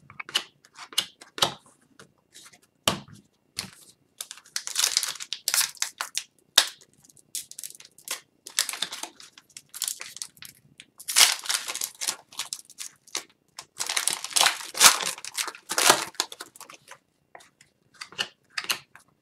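Wrapper of an Upper Deck Series 1 hockey card pack being torn open and crinkled, in a run of short crackling rustles, with light clicks of cards being handled between them.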